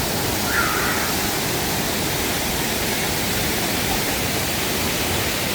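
Steady rush of water from a river rapids ride's falls and rapids. A brief faint higher sound rises above it about half a second in.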